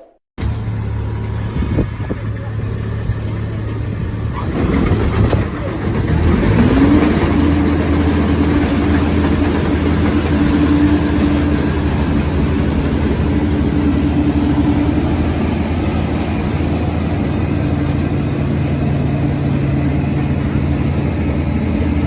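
Kubota rice combine harvester running with a steady engine drone; about five seconds in the sound grows louder and a whine climbs in pitch, then holds steady.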